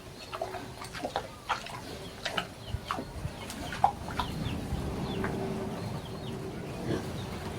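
Chickens clucking among scattered short clicks and knocks, with a steadier low rushing noise setting in about three seconds in.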